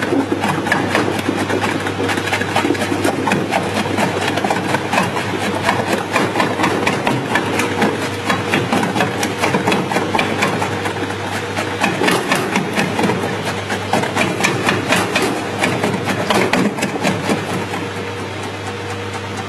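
Electric vegetable dicing machine running with a steady hum, its blades chopping peeled potatoes into cubes with a dense, rapid clatter. The chopping thins out near the end as the feeding stops.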